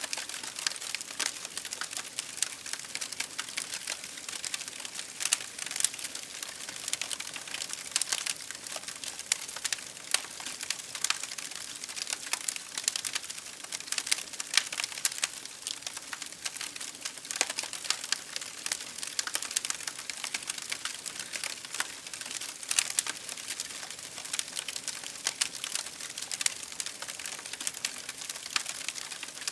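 Campfire crackling: burning firewood giving off a dense, irregular stream of sharp crackles, with an occasional louder pop.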